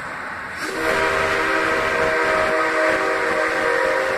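Whistle of a C57 steam locomotive blown in one long blast starting just under a second in: a steady chord of several tones over a hiss, held for more than three seconds.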